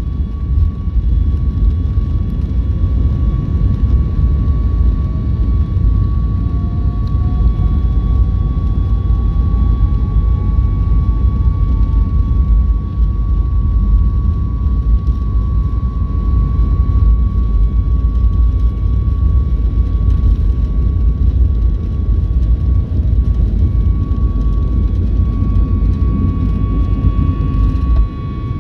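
Cabin noise of a jet airliner on its takeoff roll: a loud, steady rumble of the engines at takeoff thrust and the wheels on the runway, with a steady high engine whine and a fainter whine rising in pitch through the first half. The rumble drops suddenly near the end.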